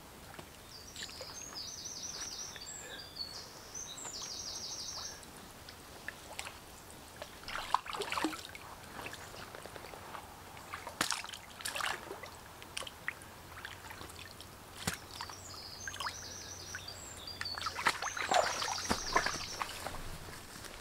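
Water splashing and sloshing in short bursts as strips of lime bark are pushed into a stream to soak for rope making. A songbird sings a quick trilled phrase twice, about a second in and again near the end.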